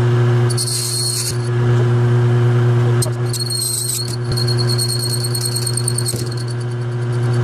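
Lathe motor running with a steady hum while the tool cuts the plastic gearbox housing. The cut gives a high-pitched squealing hiss in two stretches, about half a second in for under a second and again from about three to six seconds, then rapid fine ticking. The cut is being fed too hard.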